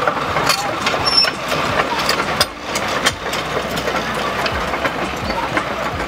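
An engine running at idle amid busy street noise, with scattered clicks and knocks throughout and a brief lull about two and a half seconds in.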